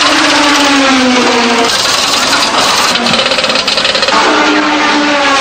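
Racing car engines running and revving in a pit lane, their pitch gliding down in the first second and a half, with a rapid rattle of a pneumatic wheel gun as a wheel is changed in the middle.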